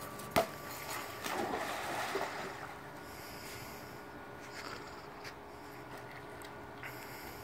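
A sharp click, then a splash of water about a second in as a small dog leaps into a swimming pool. Quieter water lapping follows while it swims.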